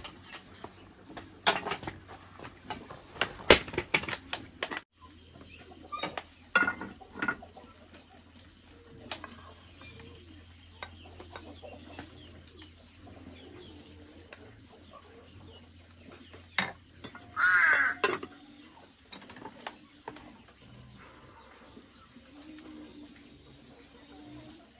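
Bird calls, mostly faint, with one louder call lasting about a second, about three-quarters of the way through. In the first few seconds there are several sharp knocks and clatters.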